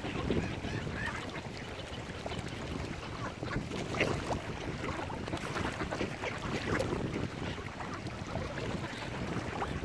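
Mallard ducks quacking now and then over a steady rush of wind noise.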